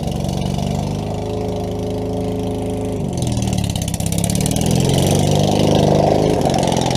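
Craftsman riding lawn mower engine running steadily, then about three seconds in its pitch dips and climbs again and it gets louder as it is throttled up under load.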